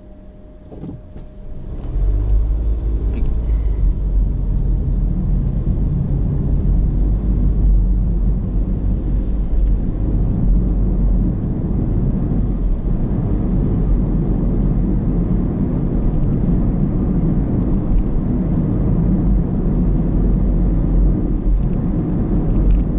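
Car waiting at an intersection with a faint hum, then pulling away about a second in; engine and tyre noise build to a steady low rumble as it drives on, heard from inside the cabin.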